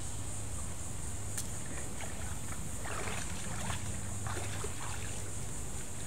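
Shallow water splashing and sloshing as a person steps out of a canoe and drags it toward the bank, in a run of short irregular splashes a few seconds in, over a steady high hiss.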